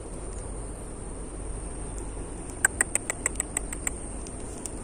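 Steady high-pitched insect drone, with a quick run of about nine short, sharp chirps a little past the middle that stand out above it.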